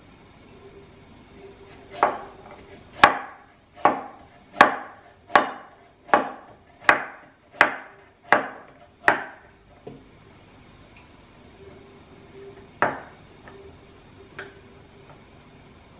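Chef's knife slicing a carrot into rounds on a wooden cutting board: about ten chops at an even pace, a little faster than one a second, then after a pause two more, one sharp and one faint.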